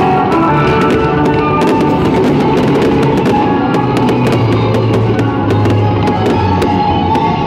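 Loud music with a drum kit and bass, playing steadily without a break.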